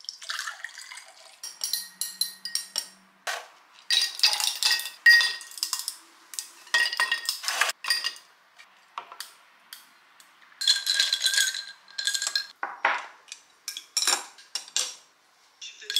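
Water poured into a glass, then ice cubes dropping into it and a metal stirrer clinking against the glass as iced fruit tea is stirred: a run of glassy clinks with short ringing tones and brief pauses between them.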